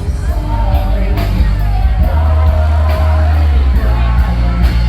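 A live band playing loud music with a singer, over heavy, steady bass.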